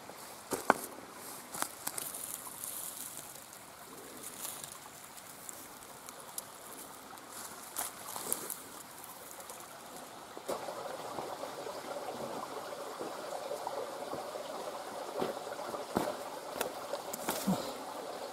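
Mountain river water running steadily, a little louder from about ten seconds in, with scattered sharp clicks and knocks.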